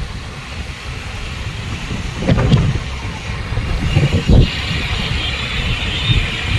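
Vehicle and road noise with wind buffeting the microphone while moving across a bridge, rising in two louder swells about two and four seconds in.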